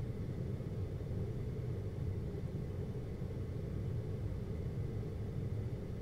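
GoldStar window air conditioner running with a steady low hum.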